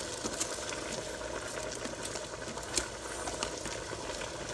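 Seasoned broth bubbling at a boil in a pot of rice and salmon, a steady hiss with small pops and crackles and one sharper click a little under three seconds in.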